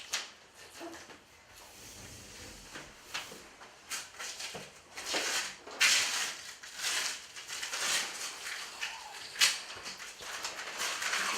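Irregular rustling and scraping of hands-on work on wall underlayment panels, with a couple of sharp knocks, the loudest about six seconds in and near the end.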